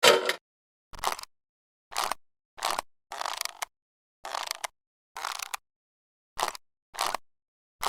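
A series of about ten short, crisp noises, each lasting a fraction of a second, separated by dead silence: animation sound effects.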